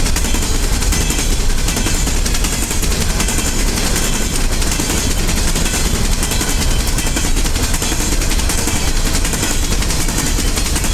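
A long freight train of coal hoppers rolling past at track side, steel wheels clattering rapidly and steadily over the rails with a deep rumble underneath.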